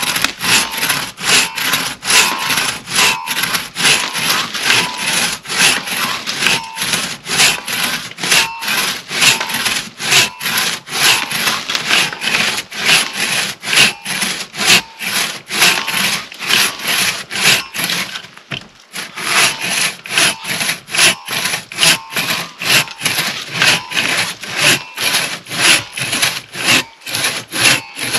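Hand crosscut saw cutting through a downed log: a steady rasping rhythm of push and pull strokes, about two a second, with a short break about two-thirds of the way through.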